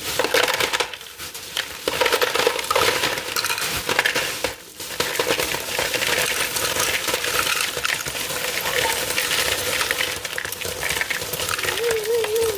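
Ice cubes clattering and clinking in a dense, continuous run of small hard knocks, with brief lulls about a second in and near the middle.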